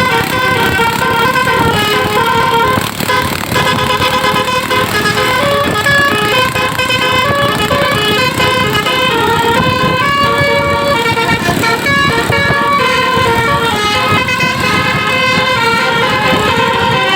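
Bus basuri telolet horn, a multi-trumpet air horn, playing a continuous melody of stepping tones over the noise of the vehicle.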